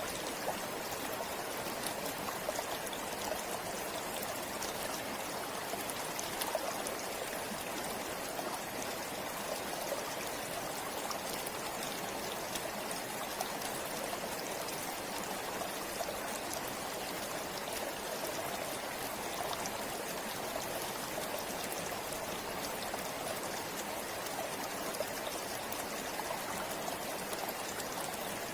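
River water flowing steadily over stones, a continuous rushing with small splashes and trickles throughout.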